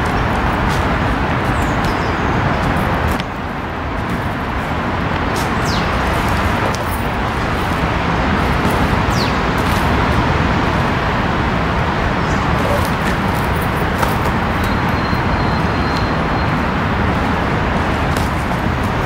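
Loud, steady outdoor rushing noise that dips briefly about three seconds in, with a few faint high chirps and clicks over it.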